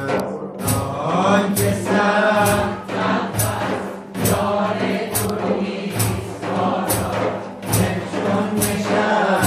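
A group of voices chanting a Persian Sufi devotional song together, over a daf (large frame drum) struck in a steady beat of about three strokes every two seconds.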